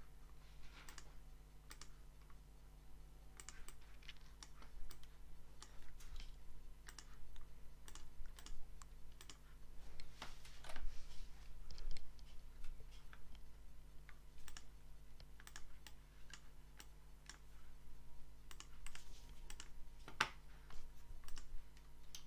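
Irregular clicks and taps of a computer keyboard and mouse, some louder than others, over a faint steady hum.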